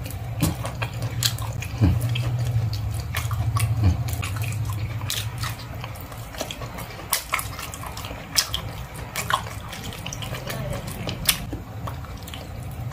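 Wet eating sounds of someone chewing and sucking cooked goat head skin held to the mouth: irregular sharp smacks and clicks. A low steady hum runs underneath, strongest in the first few seconds.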